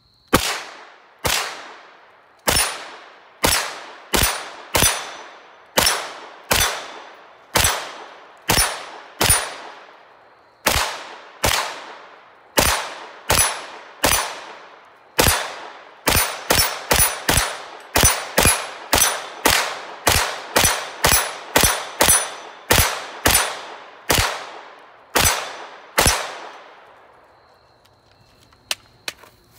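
CZ Scorpion EVO 3 S1 9mm semi-automatic carbine firing about three dozen single shots, each a sharp crack with a short echoing tail. The pace is about one shot a second at first, quickens to about two a second in the middle, and the firing stops a few seconds before the end.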